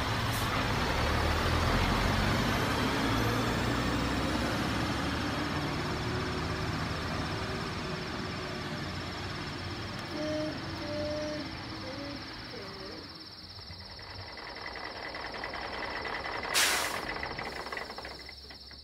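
Truck engine sound of a radio-controlled Mack tow truck running with a steady low rumble and a thin high whine over it, easing off as it slows. Near the end comes one short, loud air-brake hiss as the truck stops.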